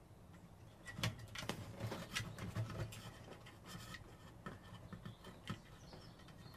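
Side cutters being worked in among the wiring of a CRT monitor's neck board to snip two soldered flyback cables: faint small clicks and scratching of the cutter jaws, wires and plastic, thickest in the first few seconds.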